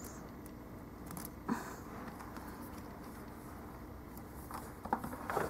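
Faint handling noise from a Pivot Power swiveling power strip and its coiled cord being picked up and turned over by hand: a light click about one and a half seconds in and a few rustles and knocks near the end.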